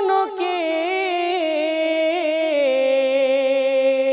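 A solo voice singing an Urdu-Pashto naat (devotional song in praise of the Prophet) with no instrument: one long, ornamented line whose pitch wavers, then slides down about two and a half seconds in and holds a lower note.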